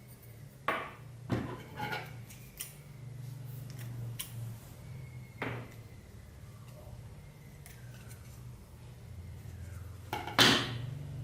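Hard objects being handled and set down on a tabletop: about six separate clicks and clacks, the loudest near the end, over a low steady hum.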